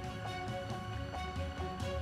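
Background music: a steady melody of evenly paced notes, about two a second, over a low bass line.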